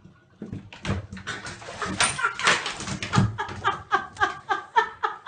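A dog barking and yelping, ending in a quick, even run of high yips, about three a second.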